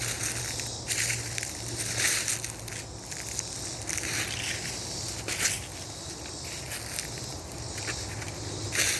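Dry leaves and twigs crunching underfoot in irregular steps, roughly one every second, over a faint steady low hum.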